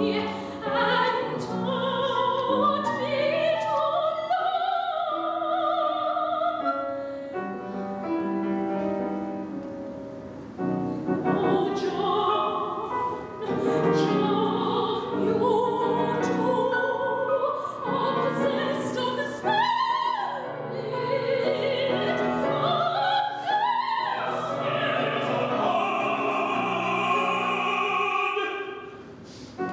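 Operatic singing with vibrato, accompanied by a grand piano.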